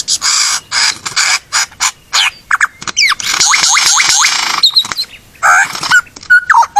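A bird singing a loud, varied song: rapid sharp chirps and clicks mixed with noisy chattering, and a run of falling whistled notes about three seconds in.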